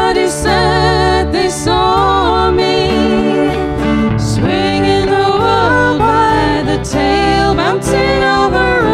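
Live band playing a slow country-folk song: women's voices singing with vibrato over strummed acoustic guitar, electric guitar and electric bass guitar.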